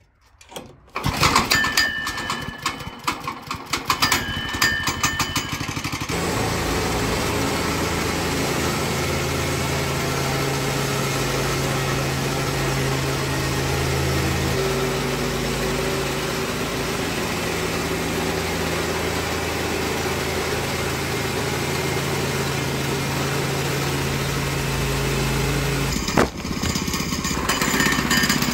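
Kohler Command PRO single-cylinder engine on a Woodland Mills HM122 sawmill, pull-started and catching about a second in. It runs unevenly for the first few seconds, then settles into a steady run. About two seconds before the end there is a sharp click, and the running sound changes after it.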